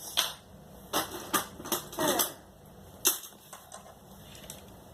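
Taps on a Snap Circuits amplifier's microphone coming out of its small speaker as a series of irregular sharp clicks and knocks, about eight in all.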